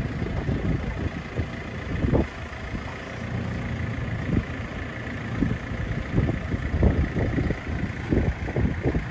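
JCB Loadall telehandler's diesel engine running as it works its forks to lift a pallet off a lorry bed.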